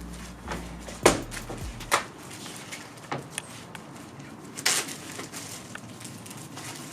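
A few scattered knocks and clicks, about five over several seconds, over a low steady hiss, with a low hum of music dying away in the first two seconds.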